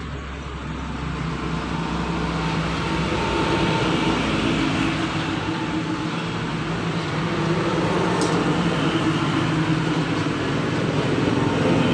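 An engine running steadily: a low droning hum that grows a little louder over the first couple of seconds.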